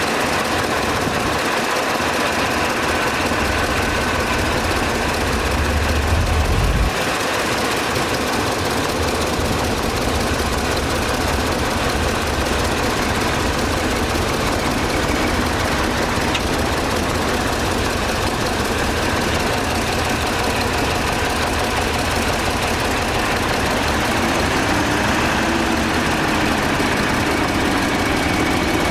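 Heavy diesel engines of earthmoving machines (a bulldozer and dump truck) running steadily. A deeper rumble cuts off suddenly about seven seconds in, and near the end the engine pitch rises and dips as it revs.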